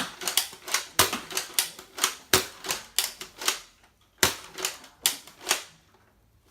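Nerf Zombie Strike Brainsaw dart blaster firing a fast run of sharp clacking shots, about three to four a second, which stop shortly before the end.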